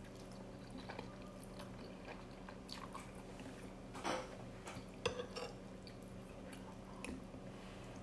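Close-up chewing of a mouthful of spicy instant noodles, with small wet mouth sounds over a faint steady hum. A louder wet mouth sound comes about four seconds in, and a sharp click about five seconds in.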